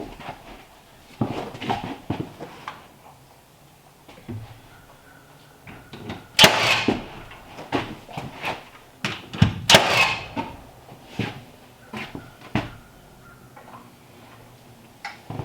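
Irregular wooden knocks and thuds from carpentry work on timber, with a couple of short scraping sounds among them.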